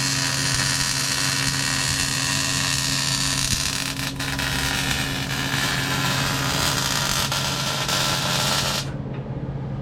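MIG welder laying a bead, a steady crackling hiss that cuts off suddenly near the end, over a steady low hum.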